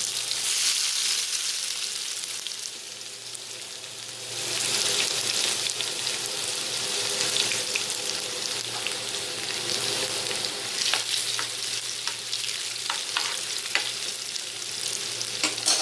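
Cumin and chopped garlic sizzling in hot oil in a pan, the sizzle getting louder about four seconds in. A spatula stirring through it, with several clicks against the pan in the second half.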